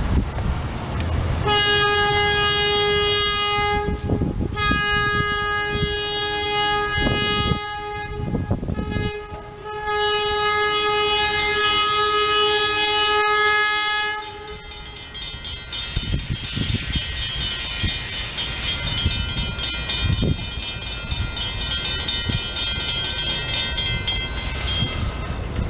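SEPTA Silverliner electric commuter train sounding its multi-tone air horn in the grade-crossing pattern: two long blasts, a short one, and a final long one. The horn then stops and the train runs past, its wheels rumbling and clattering over the rails.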